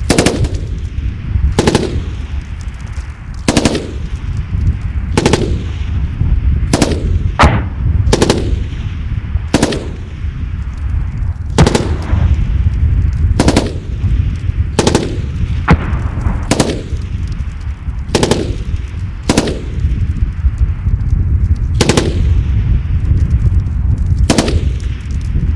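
Machine gun firing single shots and the odd quick pair, about one every second and a half, each shot trailing off in an echo, over a steady low rumble.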